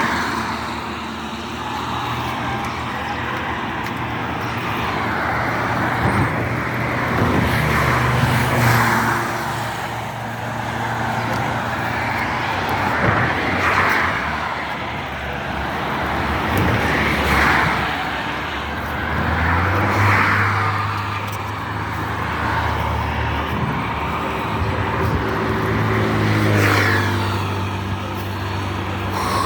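Road traffic: vehicles passing one after another, about five swells of tyre and engine noise, over a steady low engine hum.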